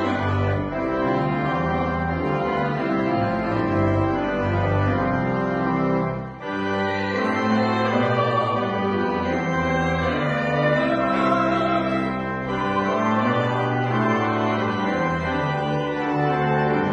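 Church organ playing slow, sustained chords over moving bass notes, with a brief break about six seconds in.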